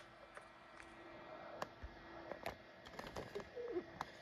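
Faint handling noise from a phone camera being turned and repositioned: scattered light clicks and knocks over a steady low hum.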